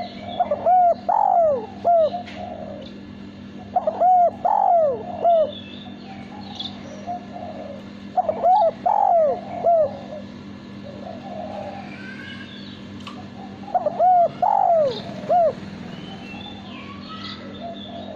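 Male spotted dove (derkuku) cooing: four phrases of several arched, mellow coo notes, spaced a few seconds apart. Fainter chirps of small birds come in the pauses, mostly near the end.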